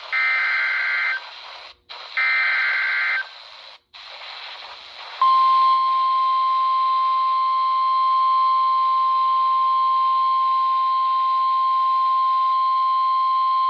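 NOAA Weather Radio Emergency Alert System signal received on a RadioShack 12-254 weather radio. Two short bursts of the warbling digital SAME header data sound first, each about a second long. After a short gap, the steady single-pitch 1050 Hz warning alert tone starts about five seconds in and holds, over radio hiss. Together they announce a warning being issued, here a flash flood warning.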